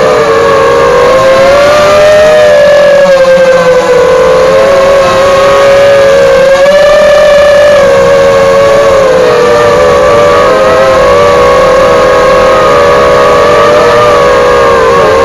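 Eachine Falcon 250 racing quadcopter's brushless motors and propellers whining in flight, several close tones rising and falling together as the throttle changes.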